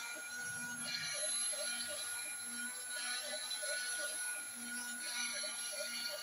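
High-speed CNC router spindle running with a steady high-pitched whine, with a burst of cutting noise about every two seconds as the drill bit plunges into the wooden block.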